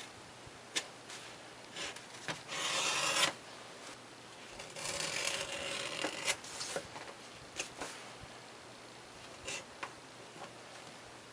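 Sanding the glued edges of a leather card wallet, rasping strokes of abrasive on leather: a short run of strokes about two and a half seconds in and a longer one around the middle, with light taps and knocks between.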